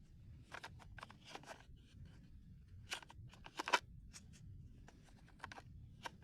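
Scattered small plastic clicks, taps and rustles of an X-Shot toy dart blaster being handled and worked at while its mechanism keeps getting stuck. The sharpest click comes a little before four seconds in.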